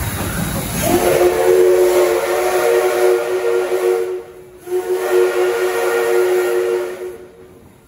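Steam locomotive DT668 sounding its steam whistle as it pulls away: two long blasts of a steady multi-note chord, the first starting about a second in and the second after a short break, with a rush of steam noise before the first blast.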